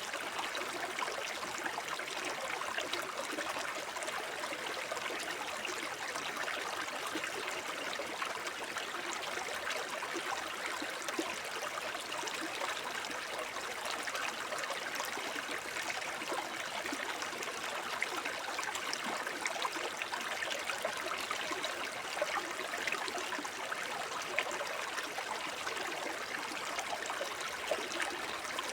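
Forest brook babbling: a steady rush of running water, flecked with small splashes and gurgles.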